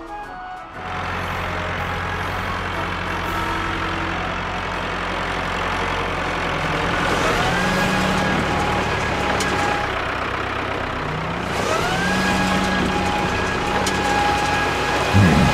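Engine sound effect of a cartoon tractor straining against a heavy load, its wheels spinning, over a steady noisy rush. About a second in it starts up, and it revs up twice, rising in pitch and then holding, around halfway through and again near three-quarters.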